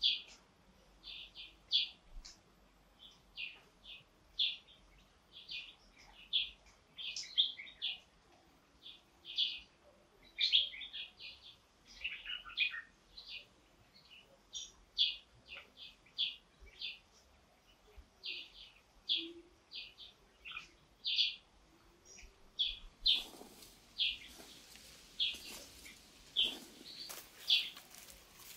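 A small bird chirping over and over in short, high chirps, about one or two a second. In the last few seconds a rustling, crackling noise joins in under the chirps.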